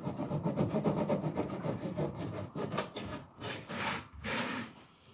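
Knife sawing back and forth through a loaf of bread on a wooden chopping board: rapid rasping strokes, a few louder ones about four seconds in, then it dies away.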